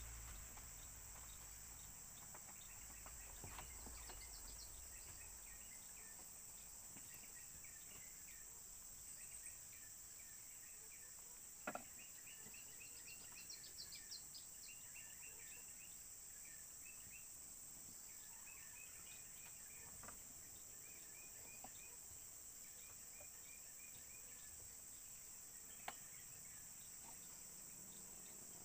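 Faint outdoor insect chorus: a steady high-pitched drone with short runs of quick chirps. A few light clicks come and go, the sharpest about twelve seconds in.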